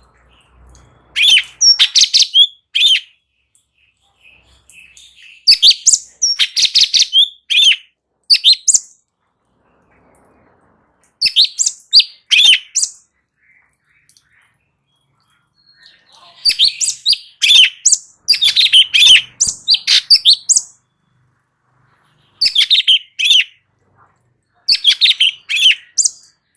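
Cucak cungkok singing in loud bursts of fast, high chirping phrases, about six bursts with pauses of one to three seconds between them.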